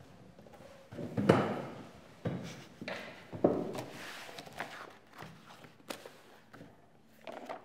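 Irregular footsteps and thumps on a parquet classroom floor, about half a dozen sudden knocks spread over several seconds, the loudest a little over a second in.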